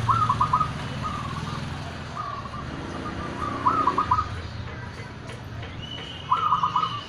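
Caged zebra doves (perkutut) cooing: repeated short phrases of quick high coos, three loud and two softer, a few seconds apart. A steady low hum runs underneath.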